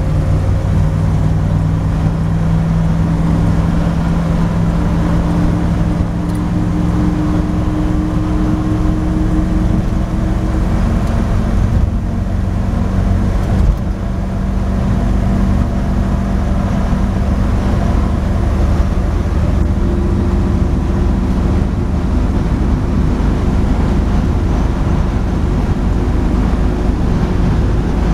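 1962 Chevrolet stepside pickup cruising at steady highway speed, heard inside the cab: a continuous engine drone mixed with road noise, with one brief knock about halfway through.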